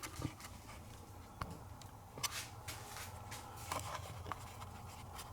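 Faint handling noise: scattered light clicks and rustles, with a few sharper ticks, over a low steady hum.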